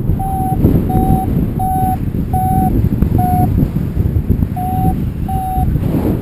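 Paragliding variometer beeping in short, evenly spaced mid-pitched beeps, seven of them with a pause about two thirds of the way through, over loud wind noise on the microphone. The beeping is the vario's climb tone, the sign that the glider is rising in lift.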